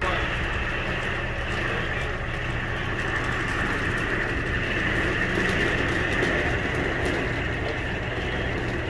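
A windy rainstorm heard from behind a vehicle's or camper's window: a steady rushing with a low hum underneath.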